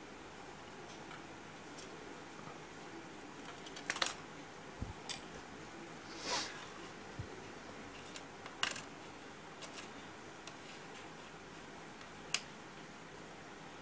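Rigid 12-volt LED light strips being shifted and laid side by side on a wooden workbench: scattered light clicks and taps, with a short scraping slide about six seconds in.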